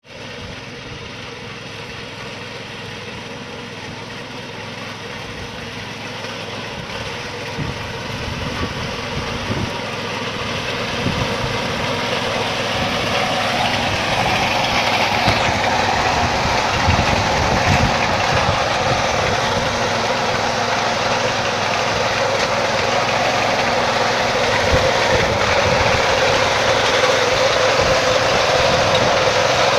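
Engine of a wheat harvesting machine running steadily, with irregular knocks and rattles. It grows louder over the first fifteen seconds or so, then holds steady.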